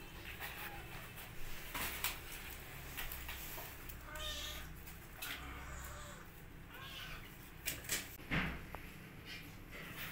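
Kittens mewing, about three short calls in the middle stretch, among sharp knocks and scratches from play on cardboard. The knocks are loudest about eight seconds in.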